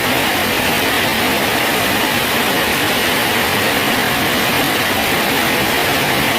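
Steady rain falling on a bridge: an even, unbroken hiss with no separate drops standing out.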